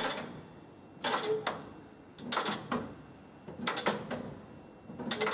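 Rail car handbrake wheel being turned in short strokes, its ratchet and pawl clattering in four brief bursts about a second and a half apart.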